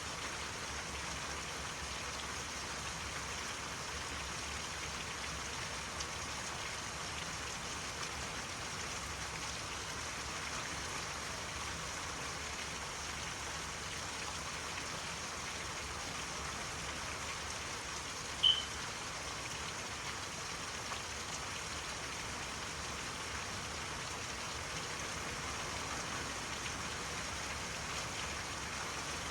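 Steady rain falling, an even hiss without let-up. About two-thirds of the way through, a single short high chirp stands out above it.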